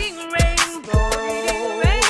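Background music with a steady beat in a hip hop/R&B style: a low kick drum about twice a second under sharp drum hits and a sliding melodic line.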